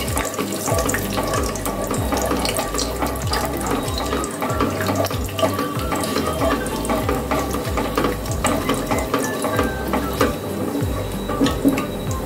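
Cinnamon sticks and green cardamom pods sizzling and crackling in hot oil in a kadai, with a spatula stirring and scraping the pan: whole spices being tempered in hot oil.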